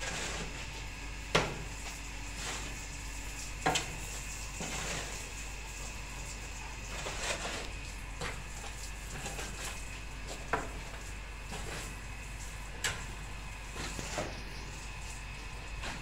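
Metal spades scraping and scooping through loose cement and sand on the ground, with a few sharp clanks of a blade striking, the loudest about a second in.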